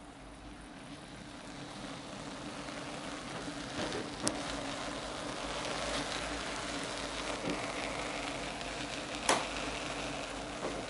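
N-gauge model train running along the layout track, heard from the camera car riding on it: a steady rolling hiss and rumble that grows louder, with sharp clicks as the wheels cross rail joints and turnouts, the loudest about four and nine seconds in.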